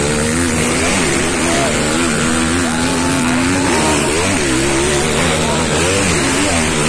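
Motocross bike engines revving hard and rising and falling in pitch as bikes race past and take the jump, several engines overlapping.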